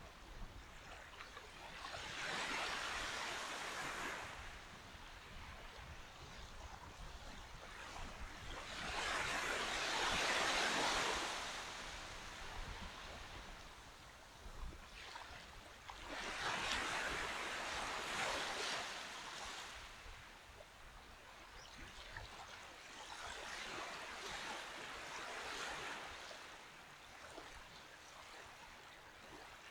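Small waves washing onto a sandy beach, four swells of surf about seven seconds apart, the loudest about ten seconds in.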